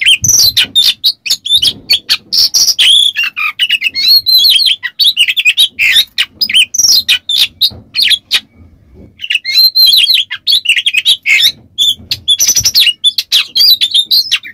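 Oriental magpie-robin singing loudly in a fast, dense run of varied whistles, chirps and harsh rasping notes. It breaks off about eight seconds in and starts again a second or two later.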